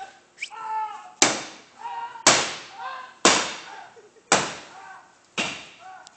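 A baseball bat striking the body of an old pickup truck five times, about once a second, each hit a sharp bang that trails off briefly.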